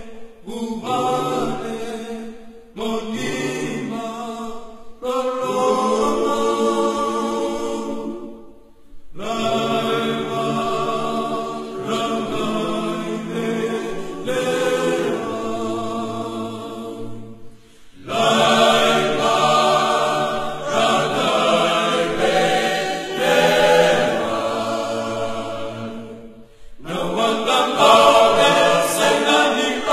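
A choir singing, in phrases broken by short pauses.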